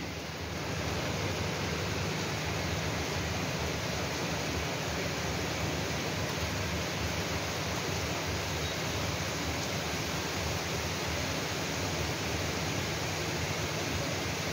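Steady, even hiss of heavy rain falling.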